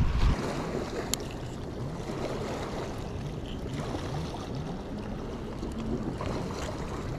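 Wind on the microphone over water lapping at a rocky shore, with a strong low gust right at the start. There is a single sharp click about a second in.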